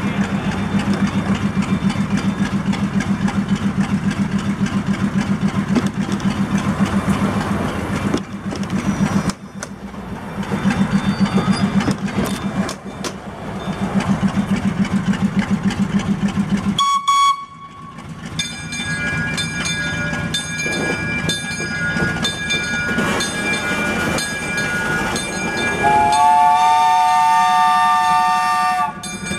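1943 Plymouth switcher locomotive's engine running with a steady, rhythmic beat for about the first half. After a brief dip, the train moves across the crossing with clicks from the wheels on the rails and several high, steady squealing tones that grow louder near the end.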